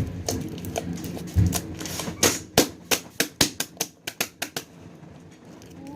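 Firecrackers going off in a quick, irregular string of sharp pops, thickest in the middle and dying away about a second before the end.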